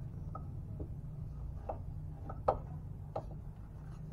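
A few light, sharp metal clicks and taps, one every half second or so and the loudest about two and a half seconds in, from a bolt and nut being handled against a car's lower suspension arm, over a steady low hum.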